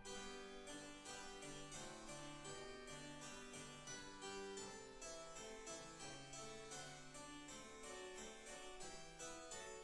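Quiet holiday background music: a new piece begins, played in quick, even plucked keyboard notes.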